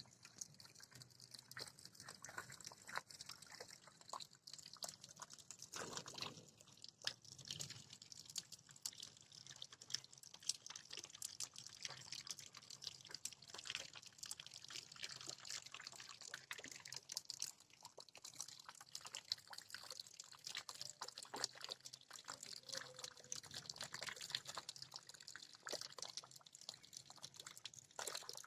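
Rain falling steadily and faintly, with dense irregular drips ticking over a soft hiss.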